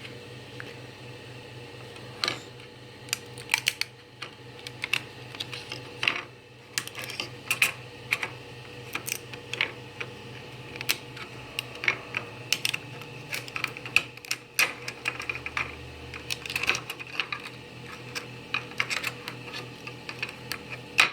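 Irregular light clicks and ticks of a freshly 3D-printed plastic battery holder being handled and picked at, over a steady low hum.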